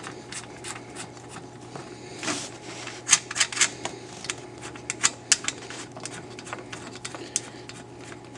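Sharp clicks and taps of wire ends being fastened to the binding posts of a regulated DC bench power supply. The clicks come thickest and loudest about three to five and a half seconds in.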